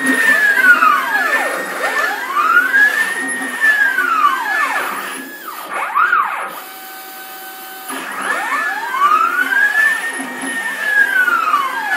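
Stepper motors driving the ball screws of a CNC router whine as the machine makes rapid circular moves at 110 inches per minute. The whine rises and falls in pitch in repeated overlapping sweeps, each about two and a half seconds long. A little past halfway the motion stops for about a second and a half, leaving a quieter steady hum, and then the circling sweeps start again.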